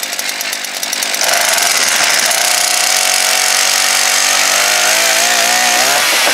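Small two-stroke petrol engine running through a homemade baffled muffler. It revs up about a second in, then runs steadily at high revs, its pitch wavering near the end.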